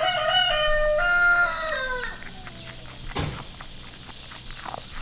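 A rooster crows once: a single call of about two seconds that drops in pitch at the end. A short knock follows about three seconds in.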